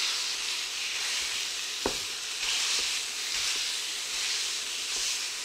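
Ground beef and diced onions sizzling in a hot skillet while a plastic meat chopper breaks up the beef, with one sharp knock about two seconds in.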